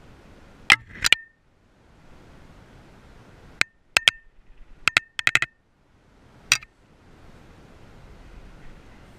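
About ten sharp clicks and clinks of small hard tackle handled in the hands, coming singly and in quick clusters over about six seconds, some with a brief metallic ring.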